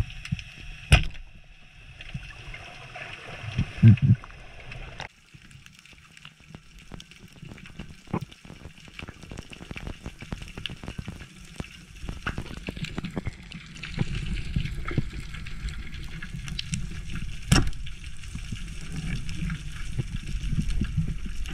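Underwater sound picked up by a diving camera: a dense crackle of small clicks over a low water rumble, with a few sharp, louder clicks, one about a second in and one about three quarters of the way through. The sound drops suddenly about a quarter of the way in, and the rumble grows louder in the second half.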